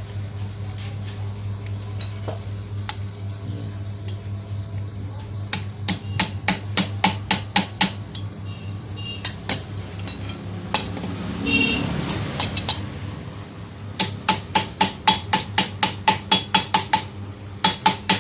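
Hammer striking metal in quick runs of about four sharp blows a second, two long runs and the start of a third, over a steady low hum.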